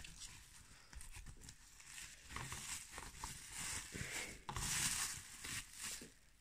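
Thin packing foam sheet rustling and crinkling in short bursts as it is folded and wrapped around a small plastic model horse by hand. A single sharp knock at the very start.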